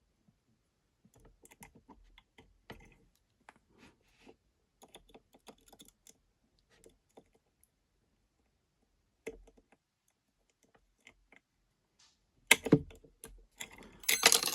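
Lock picks working in the keyway of a tiny American padlock held in a vise: faint, irregular small clicks and scrapes as pins are set, then a burst of louder metallic clicks and clatter near the end as the lock comes open.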